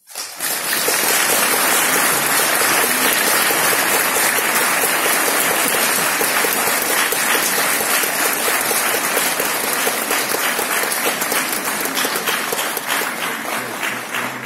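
Audience applauding steadily at the end of a performance. Near the end the individual claps become more distinct and even.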